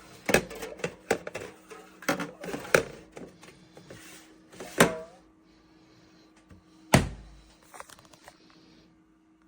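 A string of sharp knocks and clicks, as of objects being handled and set down, with two louder thunks about five and seven seconds in, the second with a low thump, over a faint steady hum.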